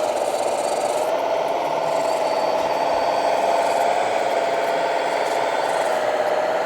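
Electric motor and gearbox of a radio-controlled model truck or machine running steadily, a whine whose pitch wavers slightly over a gritty grinding.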